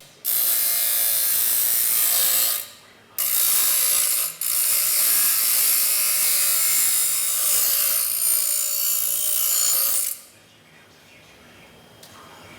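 Welder joining a small sheet-metal bracket to a transmission dipstick tube, running in three stretches: about two and a half seconds, a brief pause, about a second, then about six seconds before it stops.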